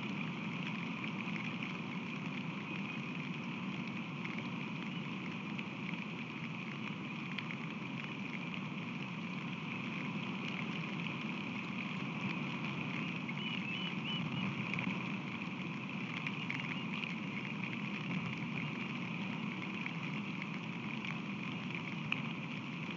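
Steady rain falling on the nest platform and the camera, a continuous hiss scattered with fine drop ticks.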